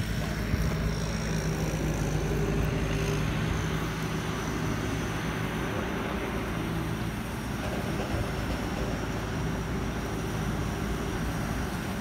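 A heavy engine running steadily at harvest, a low even drone with a thin high whine above it.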